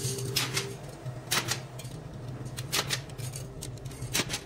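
A few sharp metallic clicks and clinks, irregularly spaced, as drilled steel racket frames are handled against a metal jig, over a steady low hum.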